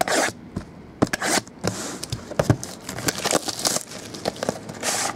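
Cellophane shrink wrap being slit with a blade and pulled off cardboard trading-card boxes: crinkling and scraping with sharp clicks and knocks as the boxes are handled.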